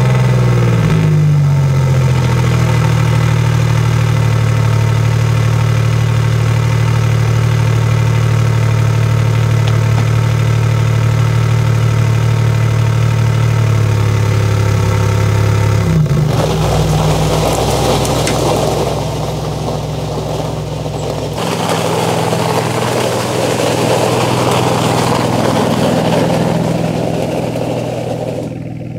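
Alfa Romeo Giulia GTA M's twin-turbo V6 just after start-up, its flare settling over the first couple of seconds to a steady idle through the Akrapovic titanium exhaust. Past the middle the idle turns rougher and noisier for several seconds, then steadies again.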